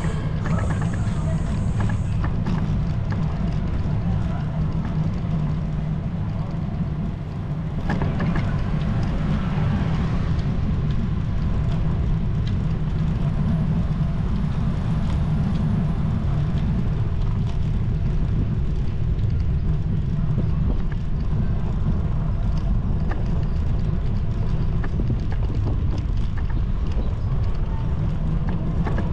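Steady low rumble of wind buffeting the microphone of a camera riding on a moving bicycle, with faint street noise underneath.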